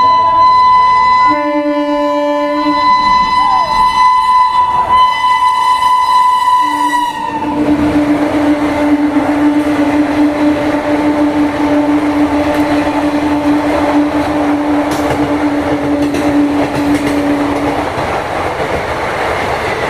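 Two-tone horn of an Indian Railways electric locomotive sounding without pause as an express train runs through. A high note is held for about seven seconds, with a lower note joining briefly. Then the lower note is held for about ten more seconds over the rush and clatter of the passing train.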